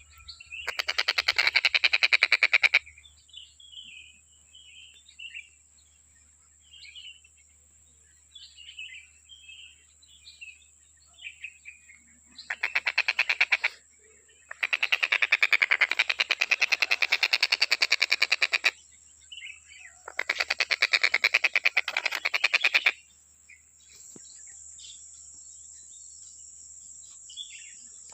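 A tengkek buto kingfisher giving loud bursts of fast, rattling pulsed calls, four times, each lasting from about one to four seconds, with softer short chirps between the bursts. A steady high-pitched whine runs underneath and grows louder near the end.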